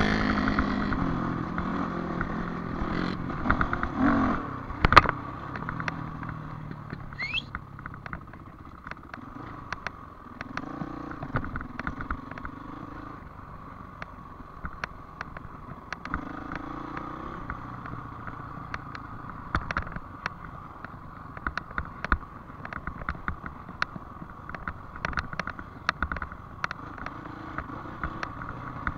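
Dirt bike engine revving in the first few seconds, then dropping back to a low, steady run at light throttle. Frequent clicks and rattles run through it as the bike rolls over the rough track, with one sharp knock about five seconds in.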